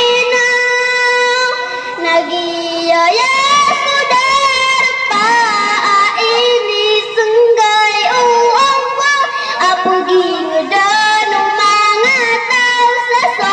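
A young girl singing a Maranao nasheed into a handheld microphone: one high voice holding long notes with a wavering vibrato and sliding between pitches, the phrases breaking off every few seconds.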